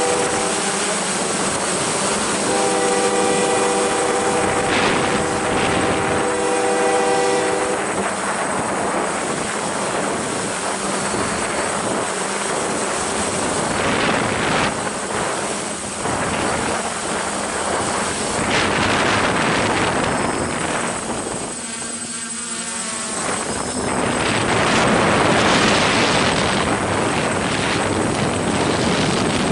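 Steady whooshing rotor noise with a high whine, with a freight locomotive's multi-chime air horn sounding a short blast at the start and a longer chord from about 2 to 8 seconds in. The rotor noise wavers around 22 seconds in.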